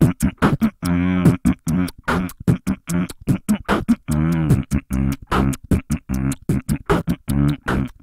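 Human beatboxing: a fast run of sharp, drum-like mouth strokes, about five a second, broken by short hummed bass notes.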